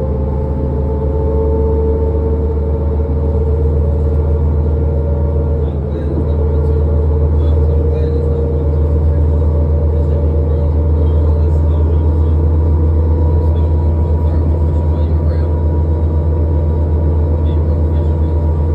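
Cabin sound of a 2006 New Flyer D40LF diesel city bus under way: a steady low engine drone with a higher whine over it that drifts slightly in pitch, dipping briefly about six seconds in.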